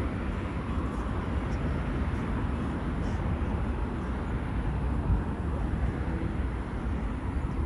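Steady jet engine rumble of an Airbus A350 wide-body airliner landing, heard across the airfield as it comes down onto the runway.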